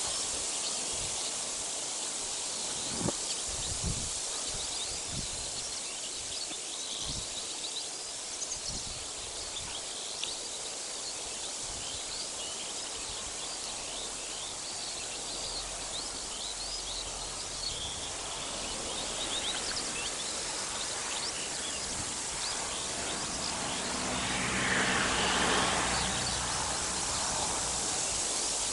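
Outdoor ambience: scattered short chirps of small birds over a steady hiss, with a few low thumps in the first several seconds and a louder swelling rush of noise about twenty-five seconds in.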